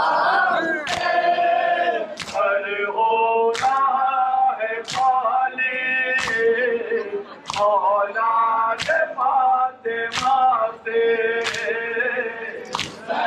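Men's voices singing a Muharram nauha (lament) in unison, with a sharp chest-beating slap of matam about every 1.3 seconds keeping time.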